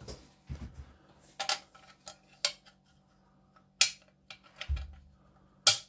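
Small metal model-kit parts and screws clinking and tapping against the metal gauntlet plate as it is handled and screws are set in place. There are four or so sharp clicks spread out, the last one near the end the loudest, and a couple of dull handling knocks.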